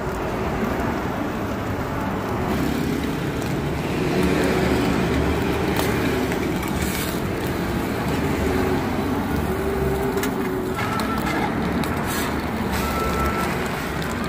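Steady street traffic noise mixed with an egg omelette and ham frying on a flat-top griddle, with a few short clicks of metal tongs and a spatula.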